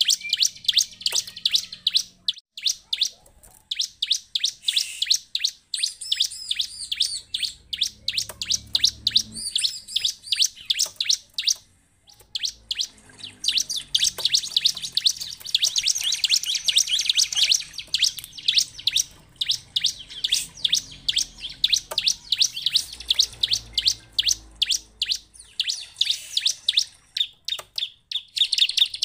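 Bar-winged prinia (ciblek) calling: long runs of rapid, sharp chips, several a second, in bursts broken by brief pauses. This is the excited chattering used as a lure to set other ciblek singing.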